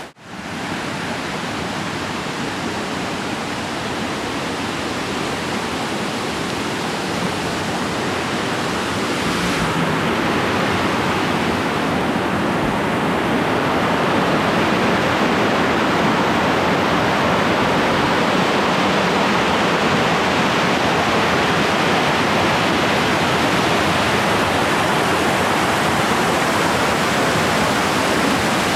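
Crabtree Falls cascading down the rock: a steady rush of falling water that grows a little louder about a third of the way through.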